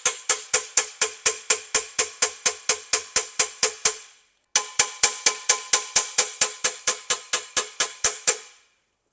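Rawhide mallet tapping a collapsed brass trombone slide tube down over a steel dent rod, about five even strikes a second, each with a short metallic ring. The tapping pauses briefly about four seconds in, then resumes and stops near the end.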